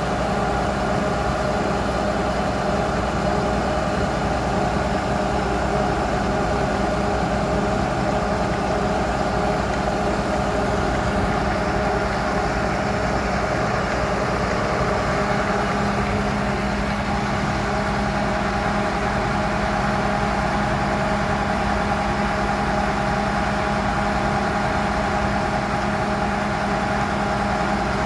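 Horizontal directional drilling rig running steadily: a continuous engine drone with steady hum tones over it, the pitch shifting slightly about halfway through.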